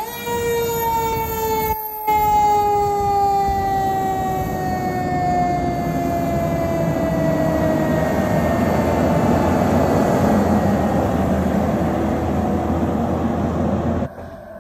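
Fire engine siren sounding a mechanical-siren style wail: a quick rise, then a slow fall in pitch over about eight seconds. The truck's engine runs loudly underneath as it pulls away, and its noise dominates once the siren has wound down.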